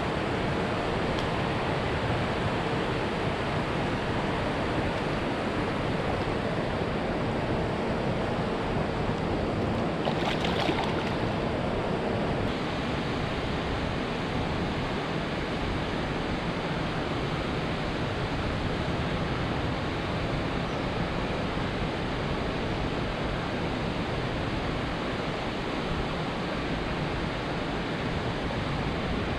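Steady rushing outdoor noise of river water and wind, with a faint steady hum during the first twelve seconds or so.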